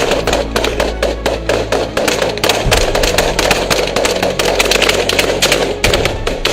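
Background music with a fast percussive beat over sustained low bass notes.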